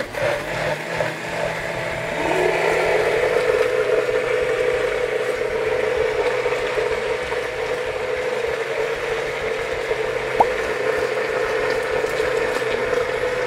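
Countertop blender motor running, pureeing a thick cream-and-mayonnaise sauce: it starts up, rises in pitch over the first couple of seconds, then runs at a steady high speed.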